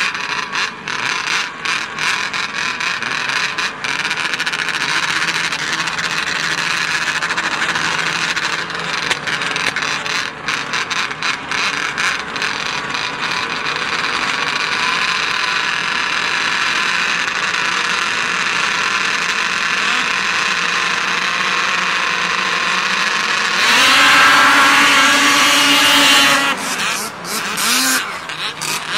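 A field of two-stroke snocross racing snowmobiles idling and revving together on the start line. Late on the whole field launches at full throttle at once: a sudden jump in loudness with rising engine pitch, which drops back and wavers a few seconds later as the pack pulls away.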